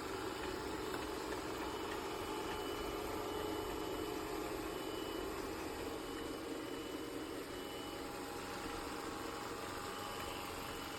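ECOVACS DEEBOT X9 Pro Omni robot vacuum running, its motor and suction fan giving a steady, even hum.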